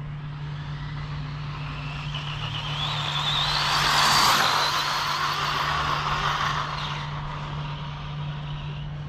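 Stretched Arrma Typhon RC car on 6S, its Hobbywing Max6 brushless motor whining as it speeds past. The whine climbs in pitch and is loudest about four seconds in, then fades as the car runs off, over a steady low hum.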